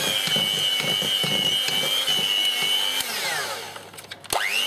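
Electric hand mixer running with a steady whine, its beaters churning a dry, crumbly cake mixture. About three seconds in it is switched off and winds down, then near the end it is started again and whines quickly back up to speed.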